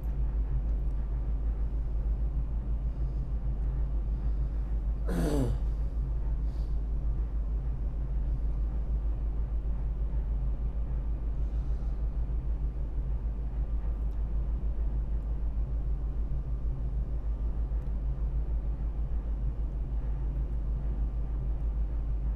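An ASD tug's diesel engines running with a steady low drone, with one brief sound falling in pitch about five seconds in.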